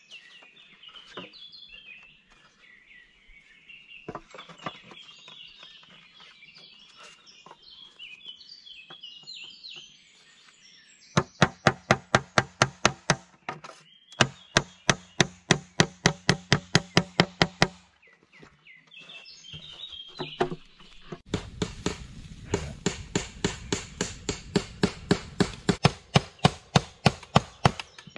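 Birds singing, then a hand tool knocking rapidly on wood, sharp even strikes about five a second, in three runs with short breaks between.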